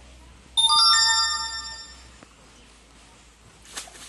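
A bright electronic chime of several bell-like notes stepping upward, which comes in suddenly about half a second in and rings out over about a second and a half. Near the end, a short splash of water as the cast net is worked in the pond at the bank.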